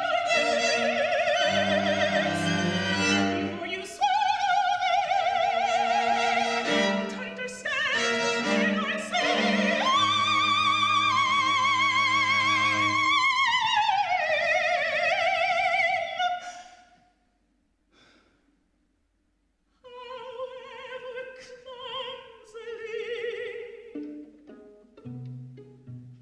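Soprano singing with wide vibrato over a string quartet of two violins, viola and cello; she holds a long high note that slides downward before the music breaks off about two-thirds of the way through. After a few seconds of near silence she resumes softly, and a low string note enters near the end.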